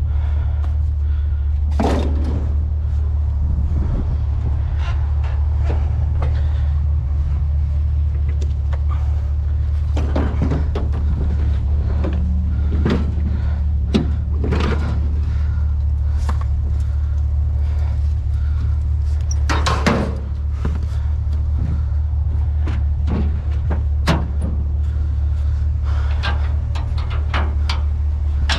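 Vehicle running with a steady low rumble, with scattered knocks and clunks over it.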